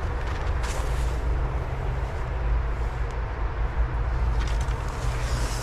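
Wind rumbling steadily on the microphone, with a couple of short rustles of brush about a second in and near the end.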